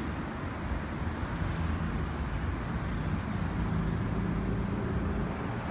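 Street traffic: a motor vehicle's engine running nearby, a steady low hum that grows gradually louder.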